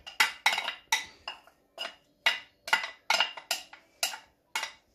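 Plastic serving spoon knocking and scraping against glass bowls as chopped avocado is scooped from one into another. A dozen or so sharp clinks come irregularly, about two to three a second.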